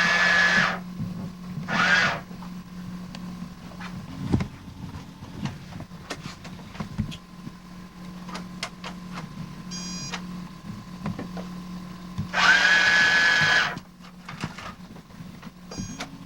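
Small electric motor in a toy store and cash register play-set whirring in two short runs, one at the start and one about twelve seconds in, its pitch rising as it spins up. Light plastic clicks and taps from handling the toy come in between.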